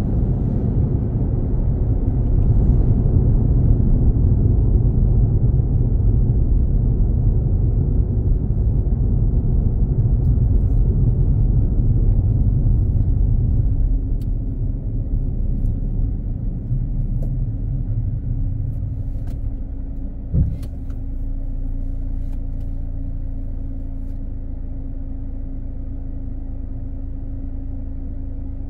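Car's road and engine rumble while driving, easing off about halfway through as the car slows, then a steady low idle hum once it has stopped. A single short thump comes shortly before it settles.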